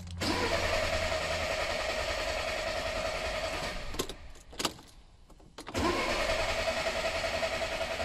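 Volkswagen Golf Mk6 1.4 TSI twin-charged four-cylinder petrol engine cranking on its starter for about four seconds without catching. After a pause with a couple of clicks, it cranks again about two seconds later. It is a crank-no-start fault that the mechanic puts down to heavily corroded terminals in a connector on the fuel pump circuit.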